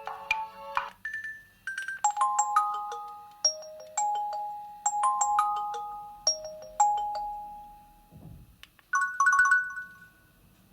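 Nokia 6300 4G ringtone playing through the phone's loudspeaker: a melody of short, bright bell-like notes. It stops about eight seconds in, a soft knock follows, and then a brief chime of another tone starts and fades.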